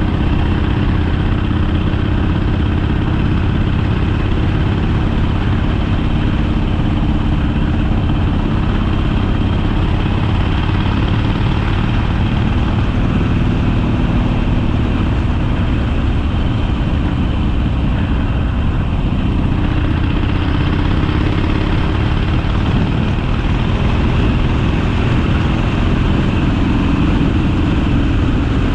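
Harley-Davidson Sportster's V-twin engine running steadily.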